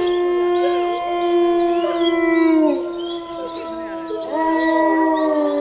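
Several long drawn-out howls overlapping, each held steady and sliding down in pitch as it ends. The first round dies away about two and a half seconds in, and a new one starts about four seconds in.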